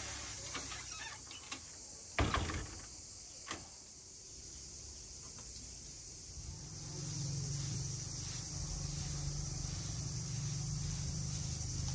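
A steady high chirring of insects, with a single loud wooden knock about two seconds in, like a wooden door bumping shut. A lower steady hum joins about halfway through.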